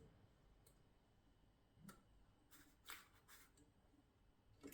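Near silence with a few faint, scattered clicks from the 1950 Mercedes Model 6 typewriter's mechanism being handled.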